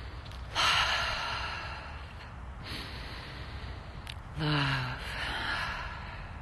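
A woman breathing deeply and audibly: a long breath that fades slowly, then a low 'love' voiced on the breath, falling in pitch and trailing off into a breathy exhale.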